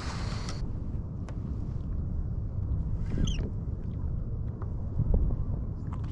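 Steady low rumble of wind on the microphone and water moving around a fishing kayak, with a splash-like hiss for the first half second. A short high chirp comes about three seconds in.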